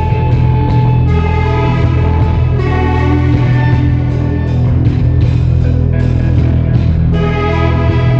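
Live rock band playing loud through a venue PA: heavy, sustained bass with guitar and a steady drum beat.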